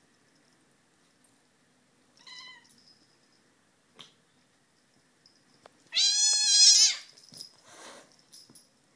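Domestic cat calling during a play-fight with another cat: a short mew about two seconds in, then a loud yowl lasting about a second near the end.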